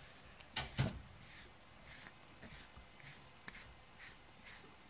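Soft, repeated strokes of a small grooming brush through a cat's fur, about two a second. A single sharp knock comes just under a second in.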